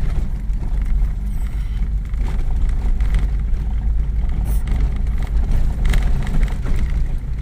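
Car driving slowly on a rough dirt road, heard from inside the cabin: a steady low rumble of engine and tyres on the unpaved surface, with a few brief knocks from the bumps.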